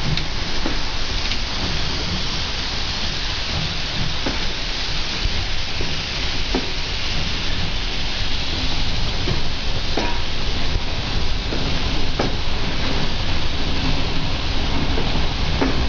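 JŽ class 33 steam locomotive hauling a passenger train out of the station, a steady loud hiss of steam and running gear, then the coaches rolling past, with a few sharp clicks now and then.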